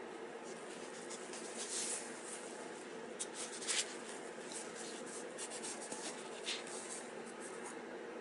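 Nylon fabric and drawstrings of a mukluk rustling and scraping in short, irregular scratches as the booted leg moves, loudest a little before the middle, over a steady low hum.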